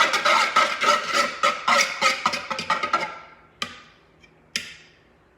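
Eggs being whisked in a bowl: a fast run of clicks with the bowl ringing, which slows and fades out about three seconds in, followed by two single taps about a second apart.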